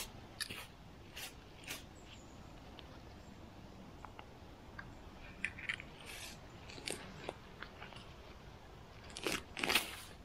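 Intermittent crunches and scrapes of forest soil and leaf litter being disturbed, with a louder cluster about nine seconds in.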